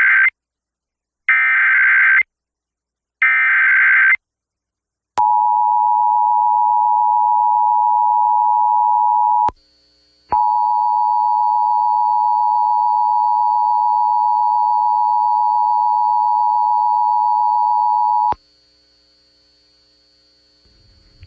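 Emergency Alert System broadcast tones: the end of one SAME header data burst and two more buzzy data bursts, each about a second long with a second's gap, followed by the two-tone EAS attention signal, held about four seconds, broken off briefly, then sounded again for about eight seconds before cutting off. This tone sequence marks the start of an emergency alert activation.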